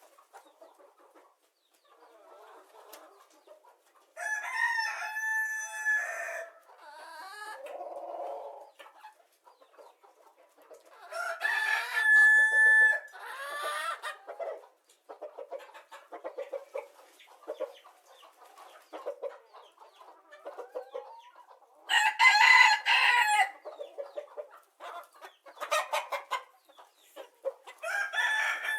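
A rooster crowing three times, each crow about two seconds long, with chickens clucking in short rapid runs between the crows.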